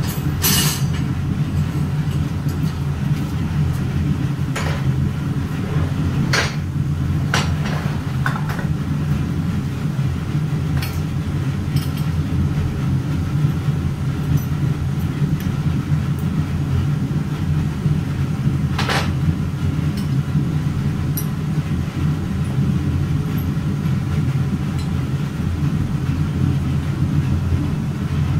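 Steady low machine rumble with a few sharp clicks and knocks, several in the first nine seconds and one more about two-thirds of the way through.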